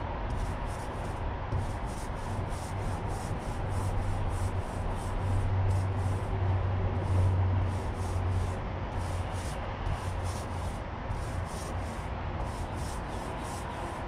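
Small paint roller rolling back and forth over a car's steel door panel, a rhythmic rubbing swish of about two or three strokes a second. A low rumble swells and fades in the middle.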